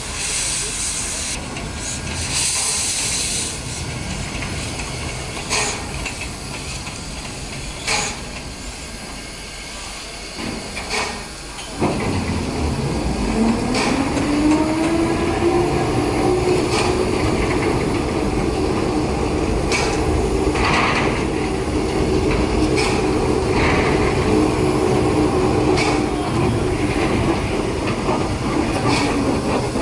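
Steam hissing from a small tank locomotive with scattered clicks and knocks. About 12 seconds in, the turntable's drive starts: a hum rises in pitch, then holds steady as the bridge turns the locomotive, with more clicks over it.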